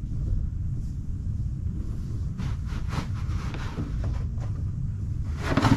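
Steady low rumble of a handheld torch flame burning while plastic is melted to patch a jet sled's hull, with a few short noisier sounds in the middle and a brief louder hiss near the end.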